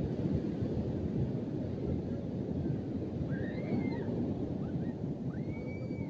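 Steady low rush of wind buffeting the microphone over beach surf, with faint distant voices about halfway through and again near the end.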